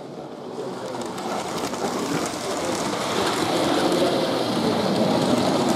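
00 gauge model trains running out of a tunnel on an exhibition layout, the steady running sound of their motors and wheels on the track growing louder as they approach.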